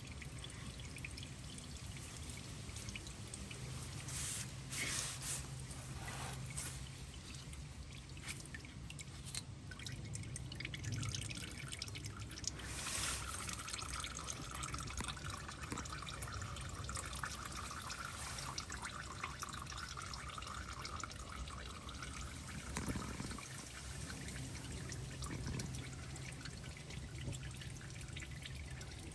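Engine oil trickling and dripping out of a partly loosened oil filter into a drain pan, in a steady low dribble.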